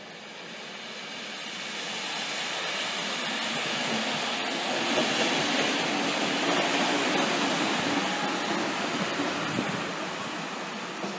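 A passenger train rolling past on a nearby track. Its running noise swells to a peak about halfway through and then fades.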